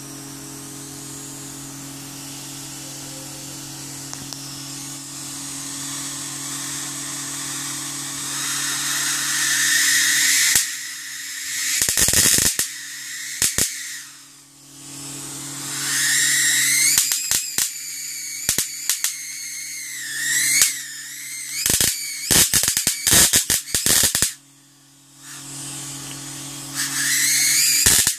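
High-voltage arcing from a Sony CRT television's flyback transformer to the picture tube, over a steady low hum. A hiss builds over the first several seconds; from about ten seconds in come repeated sharp snapping cracks and sputtering arc noise with a wavering high-pitched whine. The owner calls the output unusually strong and puts it down to the large tube's internal capacitance holding a higher charge.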